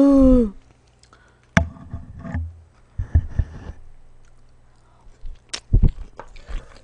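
Close-miked eating sounds: scattered clicks and soft knocks of a metal spoon scooping rice from a plastic takeout tray, then a mouthful being chewed with wet mouth clicks near the end.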